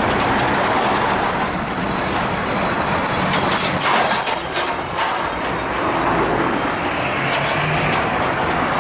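Seagrave fire engine's diesel engine running steadily as the truck pulls slowly out of the station bay.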